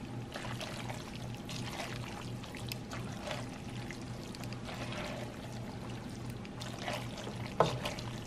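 Metal tongs tossing fettuccine in creamy Alfredo sauce in a pot: irregular wet squelches of the coated noodles with light clicks of the tongs, and one sharper clack about seven and a half seconds in.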